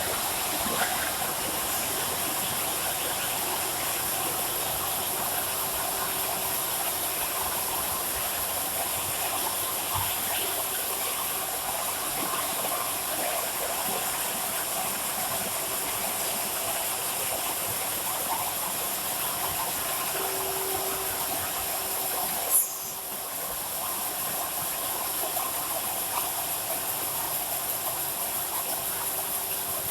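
Automatic can body welding machine running: a steady mechanical hum and hiss with light clicking throughout, and one short sharp burst about three-quarters of the way through.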